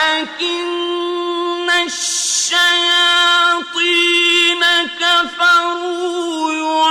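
Adult man reciting the Quran in the melodic mujawwad style, drawing words out into long held, ornamented notes with brief breaks between phrases. A short sibilant hiss comes about two seconds in.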